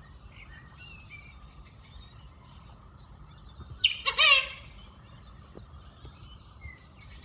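An unidentified black bird giving one loud, harsh call about four seconds in: a short sharp note and then a longer, rough, wavering one. Other small birds chirp faintly throughout.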